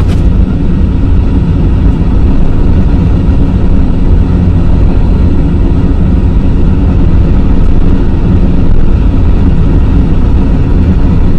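Flight simulator's sound system playing a simulated jet take-off: a loud, steady low rumble of engines.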